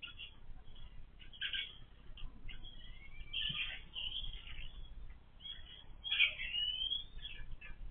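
Laying hens calling noisily: a run of short, high squawks mixed with a few longer rising calls, the loudest about six seconds in.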